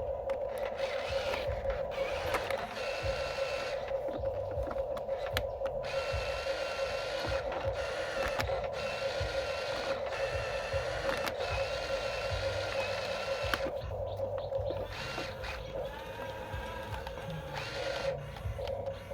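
Small electric motors and plastic gearboxes of a Huina radio-controlled toy construction vehicle whining steadily, with higher whines that rise and drop away as the controls are worked, and scattered clicks and knocks.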